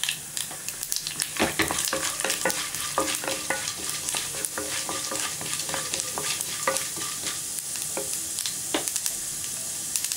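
Mustard seeds, cumin, chana dal and urad dal sizzling in hot oil in a non-stick pan, a steady frying hiss with scattered sharp crackles. From about a second in until about two-thirds of the way through, a wooden spatula stirs them, scraping and knocking against the pan with short ringing sounds.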